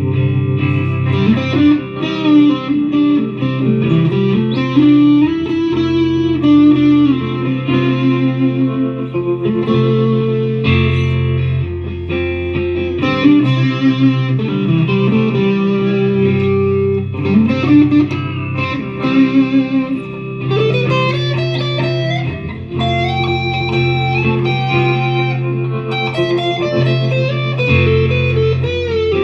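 Harley Benton TE-62CC Telecaster-style electric guitar played through an amp: a blues lead in A with string bends, over low held notes that change every few seconds.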